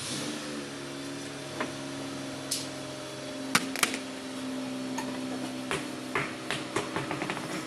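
A motor starts up and runs with a steady hum. Sharp metallic clinks and knocks of hand tools on car parts sound over it, coming quickly several times near the end.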